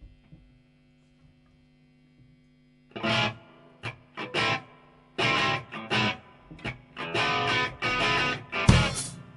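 Amplifier hum for about three seconds, then a distorted electric guitar starts the song's intro with loud, chopped chord stabs in a stop-start rhythm, and drum hits come in near the end.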